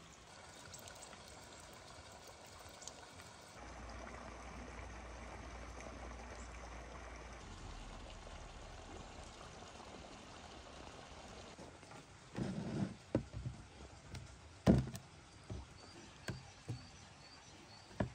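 Water running or pouring steadily, then several sharp knocks, the loudest about fifteen seconds in.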